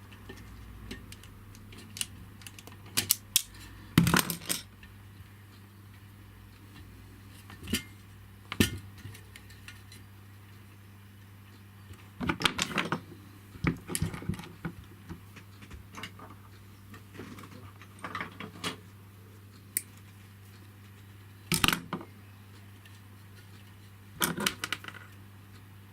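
Small metal tools and parts clicking, tapping and clattering on a workbench during wiring work on an electrical terminal, in irregular bursts, over a steady low hum.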